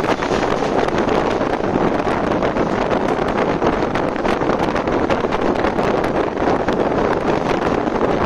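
Wind rushing over the microphone at the open door of a moving passenger train coach, mixed with the train's steady running noise of wheels on rails and faint scattered clicks.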